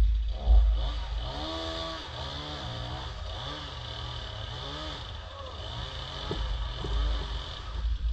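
Two-stroke chainsaw engine revved up and down in quick repeated blips, with a steady high buzz underneath. Wind buffets the microphone with low rumbling at the start and near the end.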